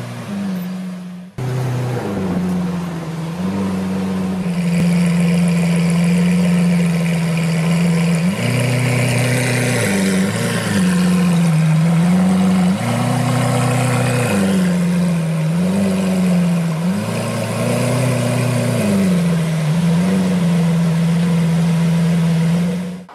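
Lamborghini Aventador's V12 engine idling steadily, with three brief, light rises in revs spread through the middle. The sound cuts off suddenly near the end.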